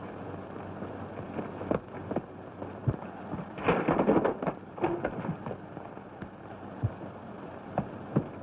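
Fistfight sound effects on an early-1930s film soundtrack: scattered thuds and knocks, and a dense burst of crashing and scuffling about three and a half seconds in as a wooden chair breaks, over steady hiss.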